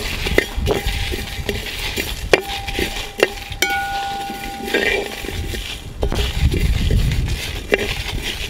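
A perforated steel ladle scraping and clinking against a wide metal pan as whole spices (coriander seeds, peppercorns, cumin and dried red chillies) are stirred while dry-roasting, the seeds rattling across the metal. Several sharp clinks leave the pan ringing for about a second, and a low rumble comes in near the end.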